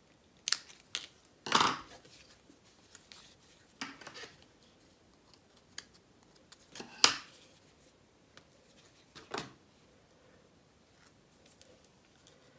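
Small craft scissors snipping a paper die-cut leaf sprig, a few short sharp snips in the first couple of seconds. Scattered clicks and light taps follow, the loudest about seven seconds in, with quiet between them.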